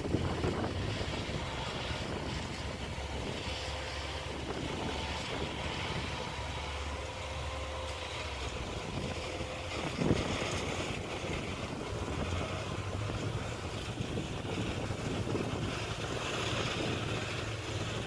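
Wind buffeting the microphone in an open field, over the faint steady drone of a distant engine, with a single sharp thump about halfway through.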